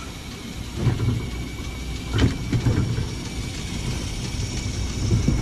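An old streetcar's steel wheels rolling slowly over a new track switch, with several sharp metallic clanks as the wheels cross the switch rails, the loudest a little after two seconds in, over a steady low rumble.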